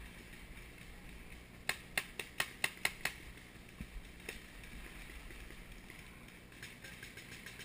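Paintball markers firing: a quick string of about seven sharp pops in a little over a second, then a few scattered, fainter shots.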